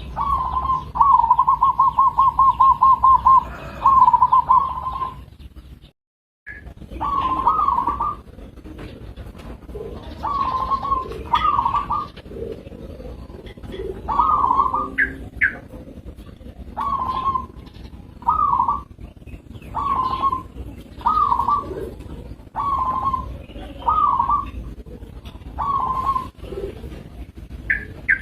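Zebra dove (perkutut) cooing: a quick run of even, rapid notes in the first few seconds, then short repeated coo phrases about every second and a half. The sound drops out completely for a moment about six seconds in.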